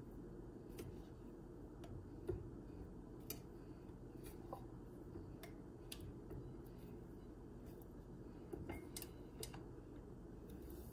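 Quiet room tone: a steady low hum with faint, scattered small ticks and clicks.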